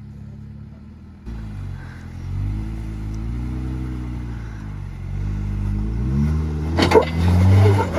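Jeep Wrangler JL engine under throttle on a rock-ledge climb: it hums quietly at first, then about a second in it revs up, its pitch rising and falling as the driver works the throttle. A sharp knock comes near the end.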